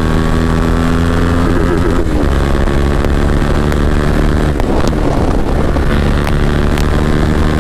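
Bajaj Dominar 400's single-cylinder engine running through an aftermarket full-system exhaust at riding speed, a loud steady drone. The engine note wavers about two seconds in and eases off briefly near the five-second mark before steadying again.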